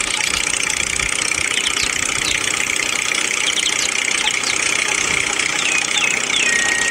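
Steady engine-like running noise from a miniature model tractor pulling a brick trailer, even and unbroken. Brief high falling chirps sound several times over it.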